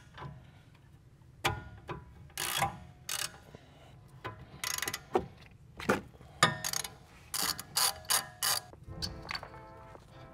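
Ratchet wrench clicking in several short runs as the 14 mm bolts holding a rear brake caliper to its bracket are backed out.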